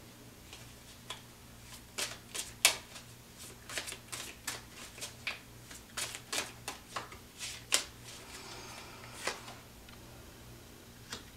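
Tarot cards being shuffled and handled: a string of sharp, irregular card snaps and taps, then a softer rustle of cards about two-thirds of the way through, before it goes quieter.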